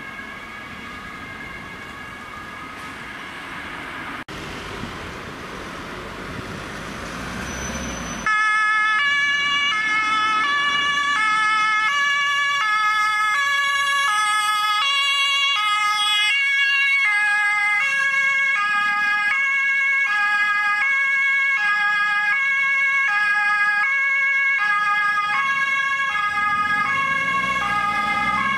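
German ambulance two-tone siren (Martinshorn) sounding, fainter and mixed with traffic noise at first. After about eight seconds it turns loud and close, switching back and forth between its high and low notes a little more than once a second.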